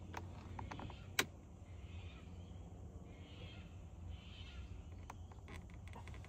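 Faint plastic clicks and taps as a small throttle-controller unit is pressed down onto the dash trim on double-sided tape, with one sharper click about a second in, over a low rumble.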